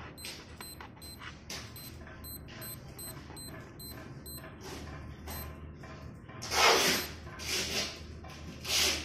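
North Edge Apache digital watch beeping at each button press, short high beeps about three a second. Each press steps the altimeter setting up one unit during calibration. In the second half a few louder rustling bursts of handling noise take over.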